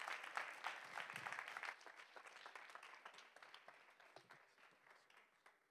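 Audience applauding, strongest at first and gradually dying away over several seconds.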